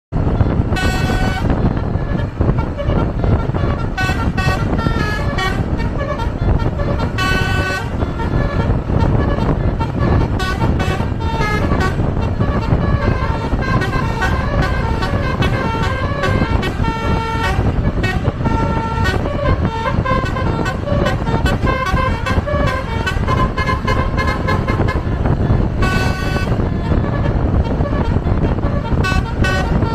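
Indonesian bus 'telolet' multi-tone horns, Basuri type, playing short melodic runs of tones one after another, over a steady low rumble of vehicles.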